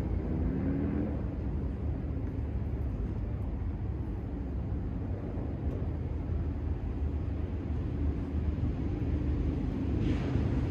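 Steady low rumble with a faint distant engine drone.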